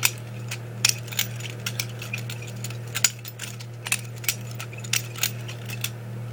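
Butterfly knife being flipped open and shut, its handles and blade clacking together in sharp metallic clicks, roughly two a second at an uneven pace, over a steady low hum.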